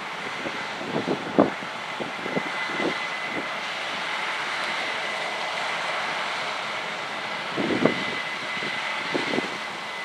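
Corn-harvesting farm machinery running steadily: a constant rushing noise with a thin high whine, broken by scattered knocks and thumps, the loudest about a second and a half in and again near the eight-second mark.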